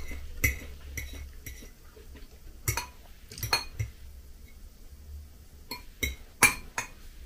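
Metal fork clinking and tapping against a glass plate, about a dozen irregular short clinks, the loudest near the end.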